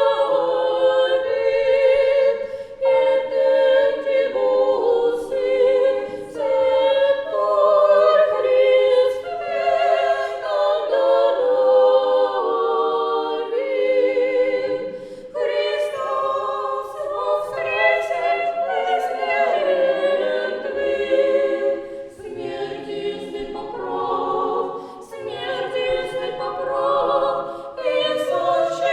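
Orthodox church choir singing unaccompanied liturgical chant, several voices holding long notes in harmony with short breaks between phrases.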